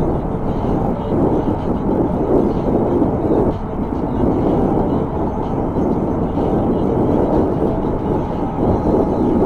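Wind rushing over the microphone of a camera riding on a moving electric bike: a loud, steady low rush that swells and dips.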